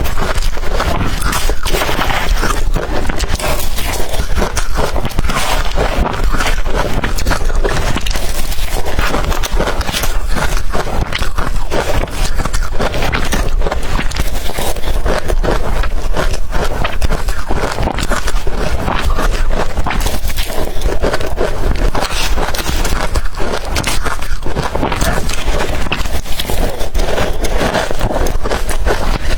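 Close-up crunching of blender-crushed ice being bitten and chewed, a dense run of crackling crunches.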